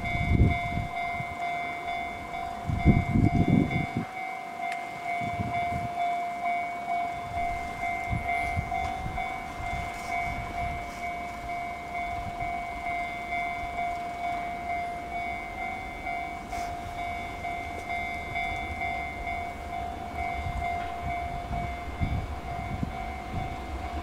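JR Freight EF210 electric locomotive hauling a container freight train, approaching with a low, uneven rumble. A steady high tone holds throughout, and two louder low bursts come within the first four seconds.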